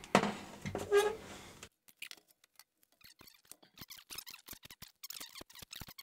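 Screwdriver undoing the screws that hold the power supply board in a DVD recorder chassis: quiet, irregular small clicks and squeaks of metal on metal, busier toward the end. Two louder brief handling sounds come in the first second or so.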